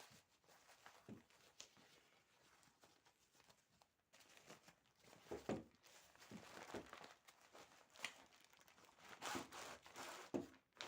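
Faint rustling and crinkling of packaging being handled as a phone tripod is unpacked, with a few light clicks and taps, busier in the second half.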